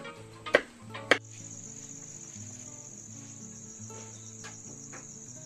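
A kitchen knife chopping green beans on a cutting board: three sharp chops in the first second or so. Then a steady high cricket trill sets in and carries on, over soft background music.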